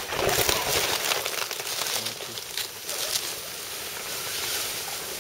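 Dry leaves crackling and crunching under the tyres of a 1:10 scale RC crawler truck as it drives over leaf litter.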